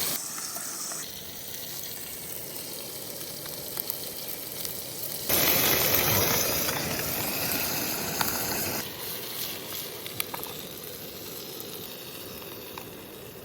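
Cutthroat trout frying in a pan, a steady sizzle with small crackles. The sizzle grows much louder about five seconds in and drops back about three and a half seconds later.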